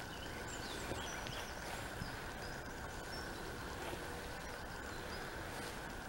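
Birds singing at dawn: many short chirps and whistles, scattered throughout, over a steady outdoor hiss with a constant faint high tone.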